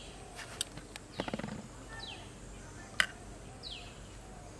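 A bird calling repeatedly with short whistles that fall in pitch, with a brief rapid rattle just after a second in. About three seconds in comes a single sharp clink, a steel spoon knocking a steel bowl of filling.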